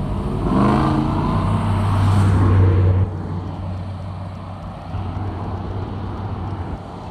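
A pickup truck's engine and exhaust accelerating past, its pitch climbing over the first second or so, then a deep, loud drone that drops away suddenly about three seconds in. Quieter passing traffic follows.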